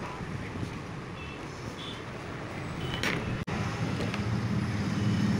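Steady low background rumble with a few light clicks and rustles of a screwdriver and wires being handled on a workbench; the sound cuts out for an instant a little past halfway.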